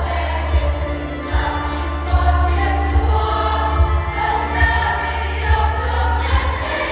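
Church choir singing a Christmas carol medley, with instrumental accompaniment carrying a heavy, pulsing bass.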